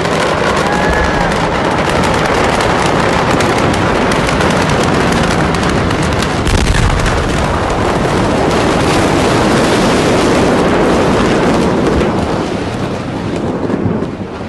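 Dense, continuous crackling and popping from the burning Beirut port warehouse fire, like a mass of fireworks going off, with a deep rumble swelling about seven seconds in. It dies down near the end.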